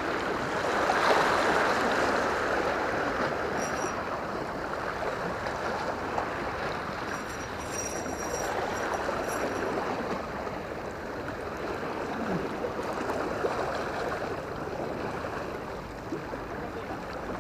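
Sea waves washing against the rocks of a seawall: a steady wash of moving water that eases a little toward the end.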